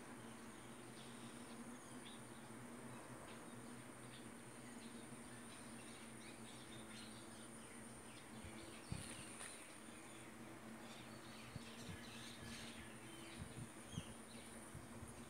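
Faint outdoor ambience: scattered short bird chirps over a steady high-pitched whine and a low hum, with a few soft knocks about nine seconds in and near the end.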